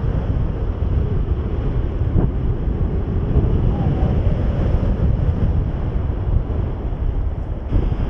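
Wind rushing over the microphone of a camera on a paraglider in flight, a steady low rumble.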